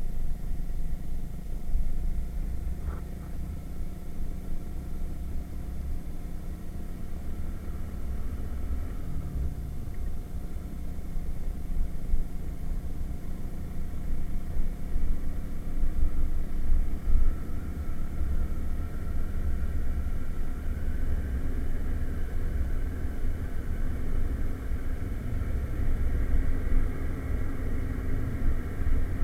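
Irbis Virago 110cc moped's single-cylinder four-stroke engine running while under way, largely buried under rumbling wind buffeting on an action camera's microphone. The engine's pitch rises about two-thirds of the way through.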